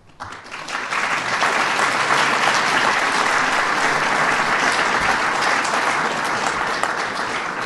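A large seated audience applauding: many hands clapping together, swelling over the first second, holding steady, then easing off near the end.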